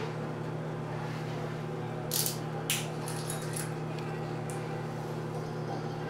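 A steady low hum, with two short scraping sounds about two seconds in and a few small clicks after them as a small bottle is opened and handled.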